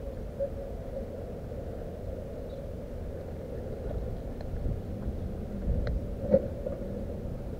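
Steady low outdoor rumble picked up by a body-worn camera's microphone, with a couple of sharp clicks about six seconds in.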